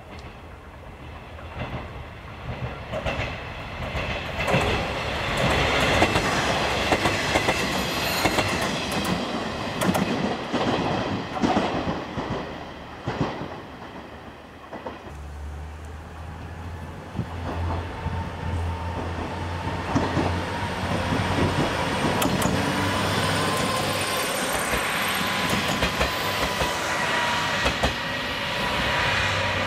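Train running on jointed track: a rhythmic clatter of wheels over rail joints, then a steady low diesel engine drone that grows as a JR KiHa 40-series diesel railcar draws near and passes.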